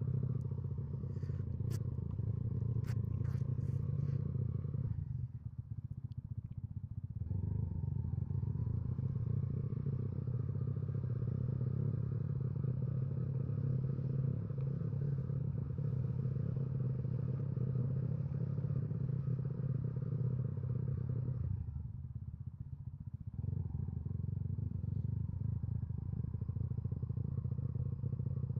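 Motorcycle engine running with road and wind noise, picked up by an action camera's built-in microphone while riding. The engine sound eases off briefly about five seconds in and again around twenty-two seconds, and a few sharp clicks come in the first few seconds.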